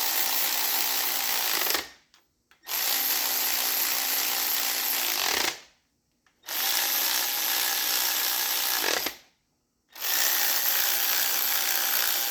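Hand-held power tool running the connecting rod cap nuts down on an engine's bottom end, in four steady runs of about three seconds each, each one tailing off as the trigger is released.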